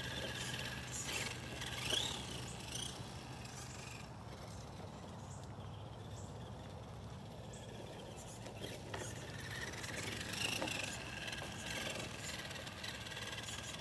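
Remo Hobby 1/10-scale RC crawler's electric motor and drivetrain whining as it drives, the pitch rising and falling with the throttle, with scattered clicks. It quiets for a few seconds in the middle before whining up again.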